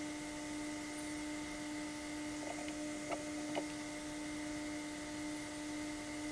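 Steady electrical hum with a few faint clicks about halfway through.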